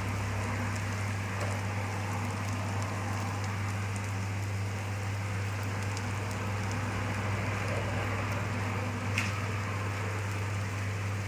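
Potato and egg omelette frying in a little oil in a frying pan: a steady sizzle, over a steady low hum, with a single tick about nine seconds in.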